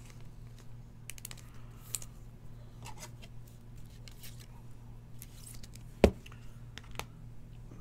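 Trading cards and rigid clear plastic card holders being handled on a table: scattered small clicks and rustles, with one sharp knock about six seconds in as a holder is set down.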